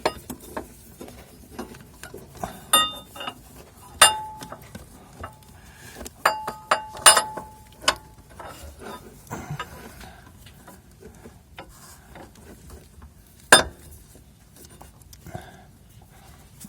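Metal parts clinking and tapping as a sway bar bushing bracket and hand tools are handled and fitted under the van: scattered sharp clinks, a few with a short metallic ring, and one loud knock near the end.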